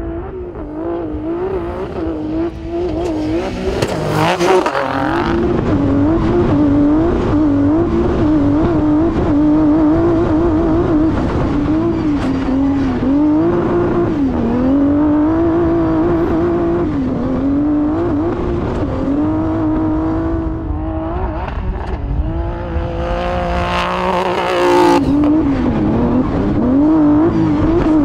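Honda Ridgeline trophy truck's twin-turbo V6 running hard off-road, its pitch repeatedly rising and dipping as the throttle comes on and off. A loud rushing hiss sweeps over it about four seconds in and again about twenty-four seconds in.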